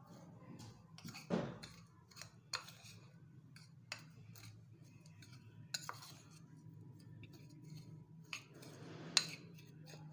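A metal spoon stirring a thick, grainy spice mix in a bowl, scraping and clinking against the bowl at irregular intervals, with a few sharper clinks.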